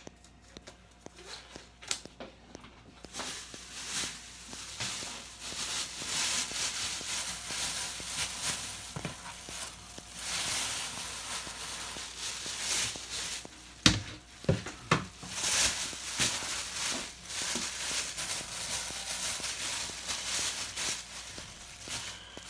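Thin plastic grocery bag rustling and crinkling as it is handled, starting a few seconds in, with a couple of sharp knocks about midway.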